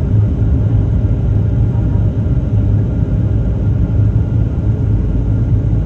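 Steady cabin drone of a Boeing 737-800 in flight, the engine and airflow noise of the airliner heard from inside the cabin: an unbroken low rumble.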